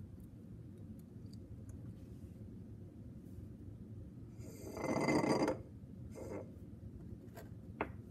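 A stick stirring and poking thick wet clay in a glass beaker, helping water soak down into the fine-grained clay: faint scrapes and taps, with one louder rough noise lasting about a second, a little past halfway.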